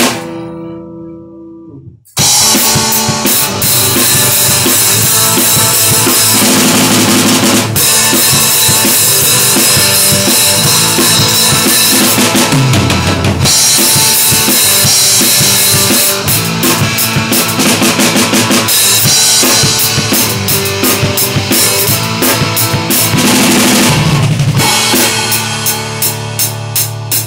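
Rock band playing live on a drum kit with bass drum and snare, over sustained pitched instruments. A chord rings out and fades at first, then the full band comes back in suddenly about two seconds in and plays on loudly, ending in a run of separate drum hits.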